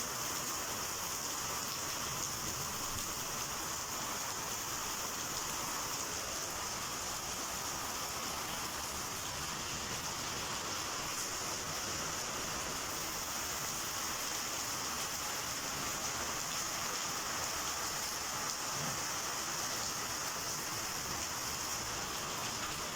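Heavy rain falling steadily: a constant, even hiss of rain on surfaces with no break.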